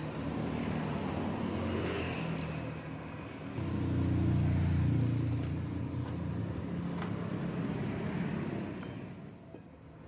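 Low engine rumble of a passing road vehicle, swelling to its loudest about four seconds in and then easing off, with a few faint clicks.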